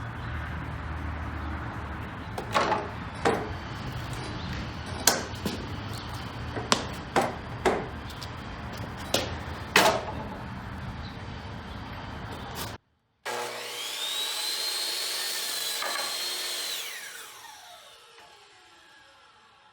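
Sharp wooden knocks and clatter of boards being handled, then a mitre saw's motor whines up to speed, runs for about three seconds and winds down with a falling whine.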